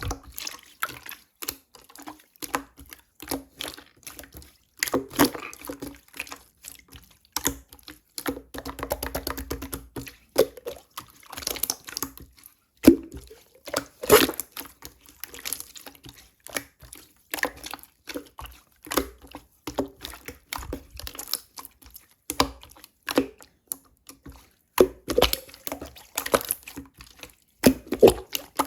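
Firm clear slime being pressed and squished by hand, giving irregular wet clicks, pops and squelches.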